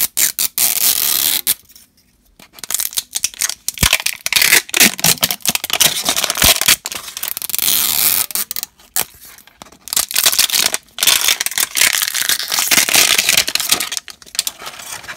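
Plastic wrapping being peeled and torn off an LOL Surprise Mini Sweets toy ball, crinkling and tearing in stretches with a short pause about two seconds in.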